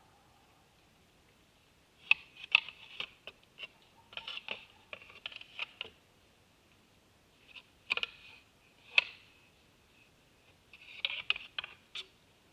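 A buck's antlers knocking and rattling against a deer feeder, like a sparring match: three bouts of quick clacks and knocks with short pauses between.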